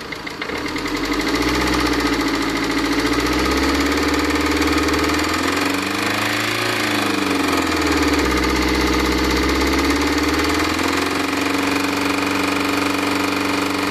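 Tata Indica Vista's 1.3-litre Quadrajet diesel engine running with an abnormal knock. About six seconds in it is briefly revved up and back down to idle. The knock comes from a worn connecting-rod bearing.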